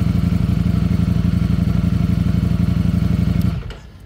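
Ducati Streetfighter V4S's V4 engine running steadily without revving, then cut off abruptly about three and a half seconds in. Below 4000 rpm this engine runs on only two of its four cylinders.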